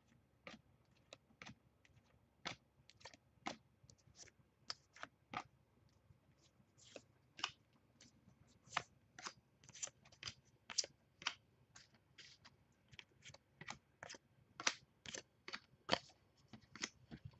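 A stack of baseball cards being thumbed through by hand, one card after another, each giving a short crisp click. The clicks come irregularly, about two a second at first and thicker in the second half.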